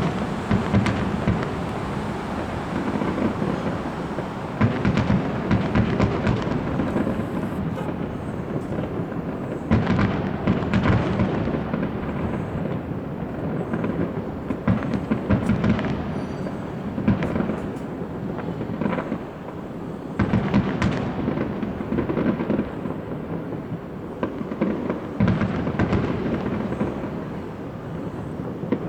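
Fireworks display: dense volleys of aerial shell bursts and crackling, with booming echoes rolling on between the bangs. The bangs come in clusters every few seconds.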